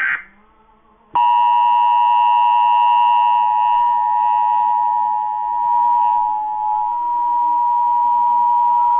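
Emergency Alert System attention signal: the 853 Hz and 960 Hz tones sounding together as one steady two-tone hum. It comes in about a second in, after the end of a digital header burst and a brief pause, and holds unchanged to the end.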